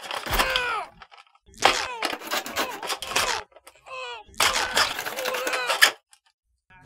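A knife stabbing into a carded action figure's clear plastic blister pack, cracking and crunching the plastic in three bursts.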